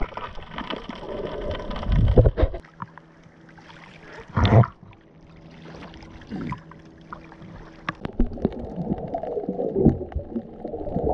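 Muffled water sounds from an action camera at and below the sea surface: gurgling and swishing, with a brief loud splash about four and a half seconds in and a steady low hum through the middle. Near the end the sound turns dull and bassy as the camera goes underwater.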